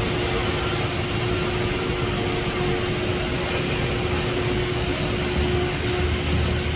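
Steady welding arc on tube, an even hiss with a constant hum underneath.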